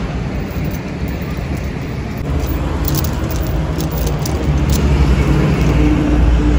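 Car driving on the road: steady engine and road rumble that grows louder about two seconds in.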